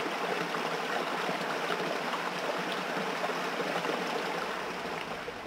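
Steady rush of running water from a stream, easing off slightly near the end.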